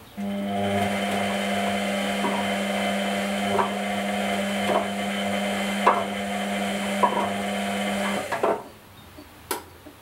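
Whirlpool Indiana 1400 front-loading washing machine's drum motor starting abruptly and running with a steady hum while the drum turns the wash. A soft knock comes about once a second as the laundry drops. The motor cuts off near the end, followed by a couple of clunks and a click.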